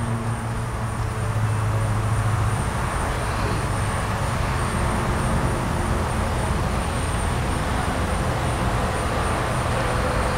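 Steady mechanical background noise: a continuous hiss with a low hum that eases about two and a half seconds in, and a faint high whine throughout.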